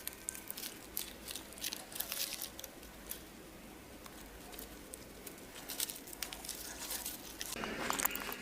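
Light handling noise: scattered small clicks and rustling, growing denser and louder near the end.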